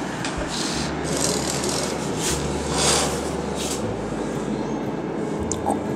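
Handling noise from a handheld camera carried through a room: a steady rustling haze with a few irregular light knocks and swishes.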